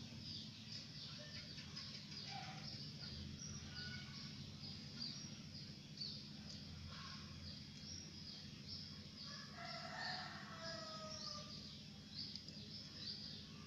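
Small birds chirping in a rapid, regular series, with a rooster crowing in the distance about ten seconds in, over a low steady hum.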